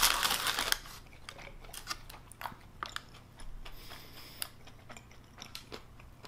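A paper bag rustles loudly as a hand reaches into it, then close-miked chewing with crisp crunches and crackles of a fried cinnamon churro.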